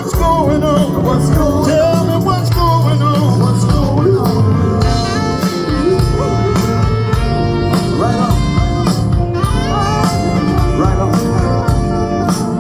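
Band music with a singer over guitar and a steady beat; the vocal line is clearest in the first few seconds, with instruments carrying on after.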